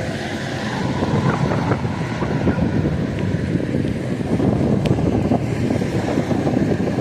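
Steady, loud rumble of a vehicle, with wind buffeting the microphone.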